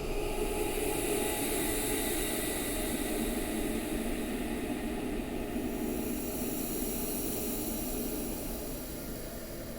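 Dark horror ambience: a steady hissing drone with a low band underneath. The high hiss grows brighter about two-thirds of the way in, and the whole thing eases off slightly near the end.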